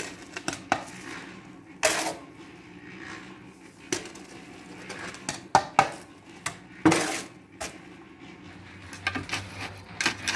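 Steel spade scraping and scooping wet cement mix in a wheelbarrow and tipping it into a threshold form: a run of scrapes and clinks, the loudest about two seconds in and about seven seconds in.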